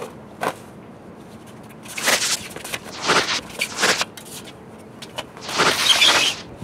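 Swishing bursts of noise as two people trade fast blows and lunges in a mock fight: four whooshes, the last one longer, with a short click about half a second in.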